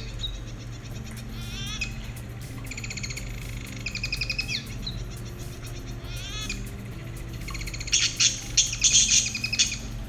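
Lovebirds chattering in rapid trilled chirps, then breaking into a run of loud, shrill squawks about eight seconds in.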